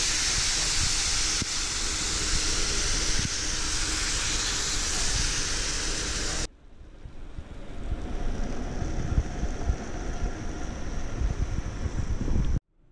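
Pieces of marinated goose sizzling in a hot frying pan on a portable gas burner, a loud steady hiss. About six and a half seconds in it cuts off abruptly to a quieter stretch of low rumbling and scattered knocks with a fainter high hiss, which itself cuts out just before the end.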